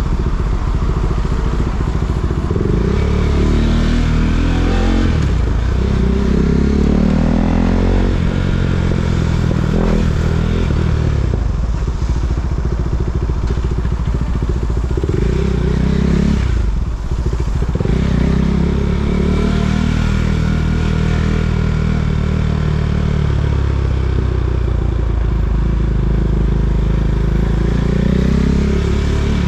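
KTM Duke 390's single-cylinder engine running, its pitch rising and falling again and again as the bike accelerates and eases off in stop-and-go riding.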